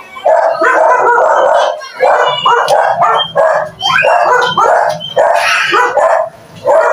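A dog barking over and over, a loud run of short barks about two a second.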